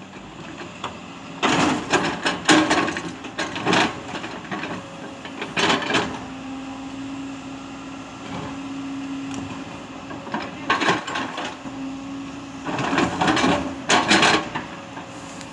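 Excavator at work on rock: bursts of heavy scraping and knocking, as of the bucket grinding against stone, come four times over a steady engine hum.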